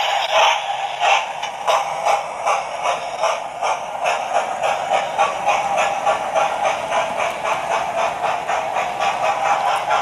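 Hornby OO-gauge model train running past on the layout: a steady rhythmic clatter of several beats a second, quickening a little after about two seconds, over a steady higher hum.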